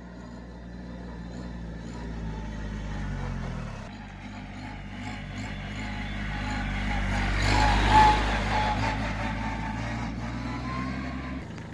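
Kubota A211N 21 HP compact tractor's three-cylinder diesel engine running steadily as the tractor drives up and passes close by. It grows louder to a peak about eight seconds in, then fades as the tractor moves away.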